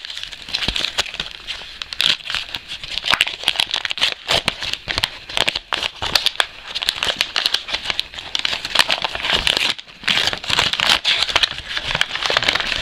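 White paper wrapping crinkling and rustling as it is unfolded and pulled open by gloved hands, a busy run of crackles with a brief pause about ten seconds in.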